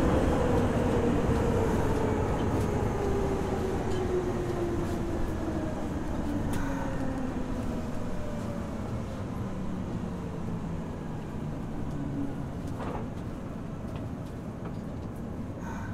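Nagoya Municipal Subway 3000 series chopper-controlled train heard from on board as it slows. The motor whine falls steadily in pitch and the running noise fades, with a few faint clicks.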